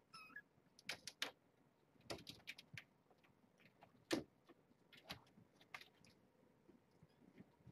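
Kittens scuffling and wrestling, making faint irregular clicks and scratches, the loudest about four seconds in. A short high mew comes at the very start.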